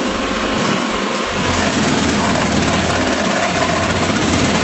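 Stone crab boat's engine and trap-hauling gear running steadily, a loud, even mechanical noise with a steady hiss over it and a thin whine that fades out about a second in.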